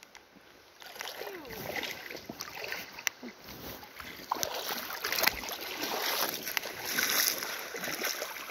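Shallow river water sloshing and splashing around someone wading through it, with a few sharp clicks.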